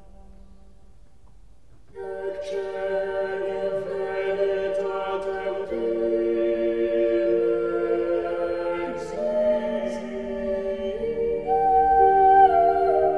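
Soundtrack music of layered singing voices holding long chord notes that shift in steps. It is faint at first and comes in much louder about two seconds in.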